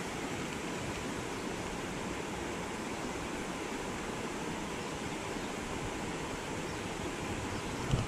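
Steady rushing of a shallow creek running over rocks and spilling over a low weir.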